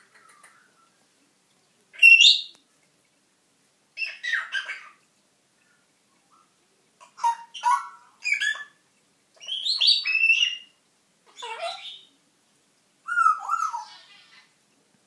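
African grey parrot whistling and squawking: a string of short calls with sliding pitch, separated by brief pauses.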